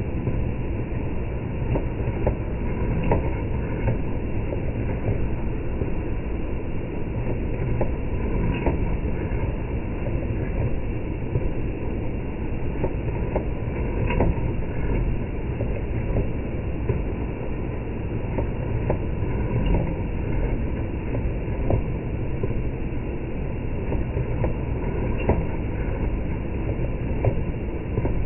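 Welding arc slowed down, a steady low crackling rumble with irregular sharp pops that sounds like a train rolling on rails.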